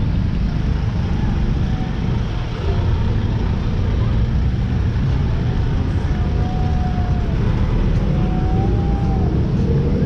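Steady rumble of passing road traffic.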